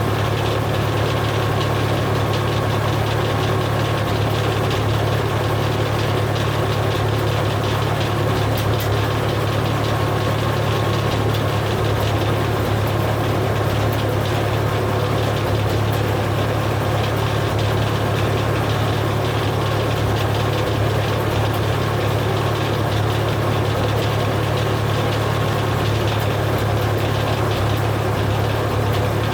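Engine running steadily at an even speed, with no rises or drops.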